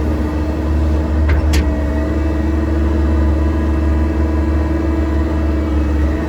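Excavator's diesel engine running steadily under load as it digs, a loud low drone with a steady hum. Two short sharp clicks sound about a second and a half in.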